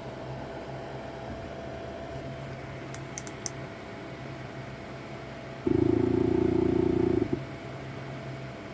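Saturn Ultra 4 16K resin 3D printer running with a steady hum, a few light clicks, then a loud pitched motor buzz lasting about a second and a half that stops abruptly.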